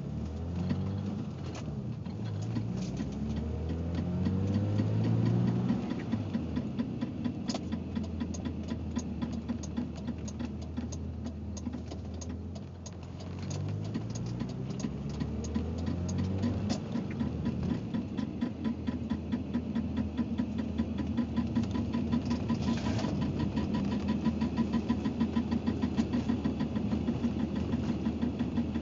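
BMW 325ix's 2.5-litre straight-six engine running, with a rapid, steady clicking that keeps time with it. The engine is revved up and let fall back twice.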